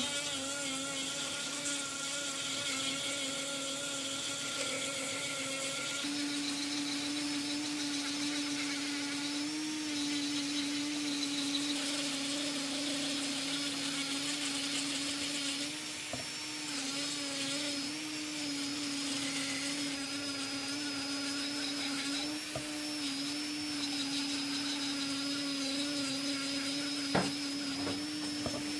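An electric power tool motor running steadily, its hum shifting to a new, steady pitch about six seconds in, with a high hiss over it. A couple of sharp knocks near the end.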